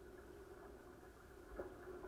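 Faint, muffled wash of water along the hulls of a sailing A-Class catamaran, with one soft knock about one and a half seconds in.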